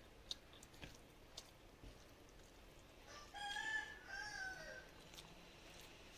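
A rooster crowing once, faintly: a single call of about a second and a half, starting about three seconds in and falling in pitch at the end. A few faint clicks come before it.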